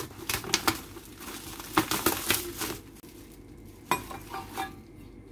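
Scissors snipping through bubble wrap and the plastic wrapping crinkling as it is pulled open, a quick run of sharp snips and rustles over the first three seconds. About four seconds in come a few light metal clinks from a stainless steel spice shaker being set on the counter.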